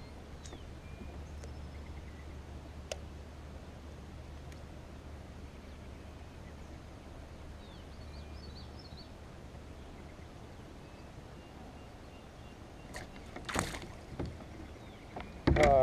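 Quiet open-water ambience from a kayak: a steady low rumble with faint bird chirps and a few small ticks. A short rushing splash-like noise comes about three-quarters of the way through.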